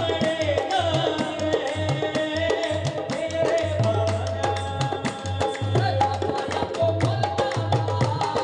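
Music with fast, steady hand-drum beats under a sustained melodic line.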